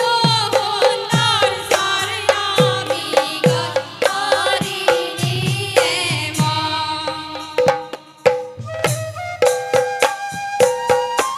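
Assamese devotional folk song (dihanam): a chorus of women singing over regularly beaten hand drums, with sharp percussive clicks. About six seconds in the voices drop out and a bamboo flute carries the melody in steady held notes over the drums.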